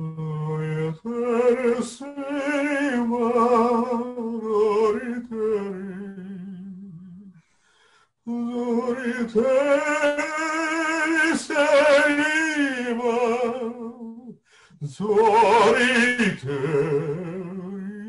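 A man singing long, wordless notes with a strong wavering vibrato, in three phrases separated by short breaths.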